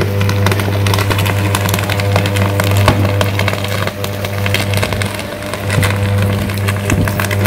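Electrical arc burning at the top of a power-line pole: a loud, steady low buzz with irregular crackling and snapping over it, the sign of an electrical fault on the line in heavy rain.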